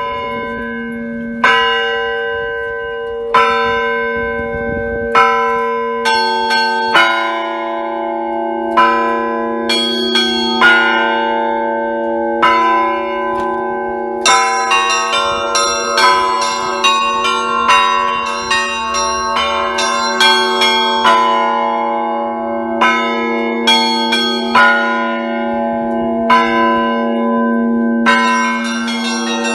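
Russian Orthodox church bells rung by a single bell-ringer. It opens with single strokes about two seconds apart. Deeper bells join, and from about halfway small bells ring in a quick, dense pattern over the sustained ring of the larger bells.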